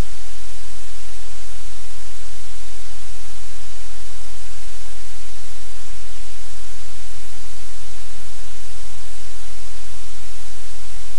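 Loud, steady static hiss with a low hum underneath. It is noise on the audio line or microphone, and no sound from the room comes through it.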